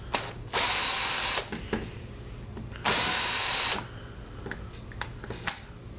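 Cordless drill fitted with a T8 tamper-proof Torx bit spinning in two short runs of about a second each, backing the case screws out of an Xbox 360 controller, with a few light clicks between.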